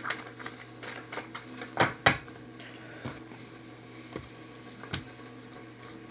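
Tarot cards being shuffled and handled: soft card rustles and a run of sharp taps and clacks, the loudest two close together about two seconds in and another near five seconds.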